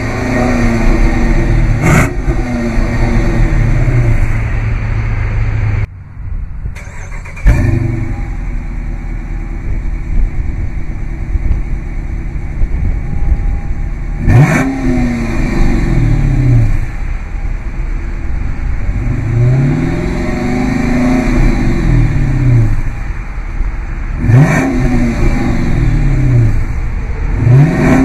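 2015 Dodge Charger R/T's 5.7-litre HEMI V8 heard at the exhaust tip, idling and being revved again and again: each throttle blip rises quickly and falls back to idle, and one rev about twenty seconds in is slower and longer. The sound drops out briefly about six seconds in.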